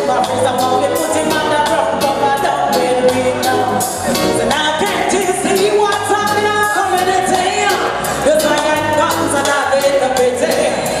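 Loud reggae backing track from a sound system with a steady beat, and a woman singing over it.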